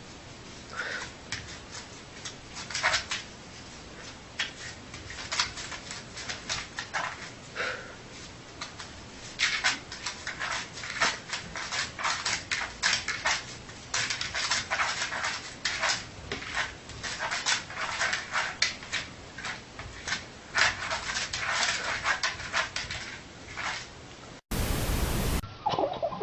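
A sleeping dog making many short, quick scuffling and clicking sounds, scattered at first and coming in dense runs from about nine seconds in, with a few faint whimpers.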